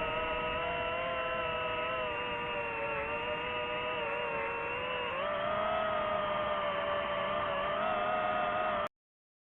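FPV drone's motors and propellers whining steadily in flight; the pitch steps up and gets louder about five seconds in, as with added throttle, then the sound cuts off abruptly near the end.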